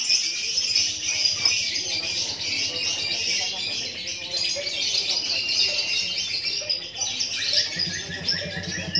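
Lovebirds chattering in an unbroken stream of fast, high chirps and trills. This is the long 'durasi' song that lovebird fighter contests time by its length.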